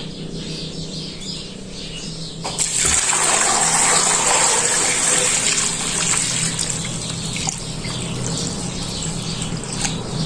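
Water pouring into a large tub of peeled cassava pieces. It starts suddenly about two and a half seconds in and runs steadily on, filling the tub until the pieces are covered.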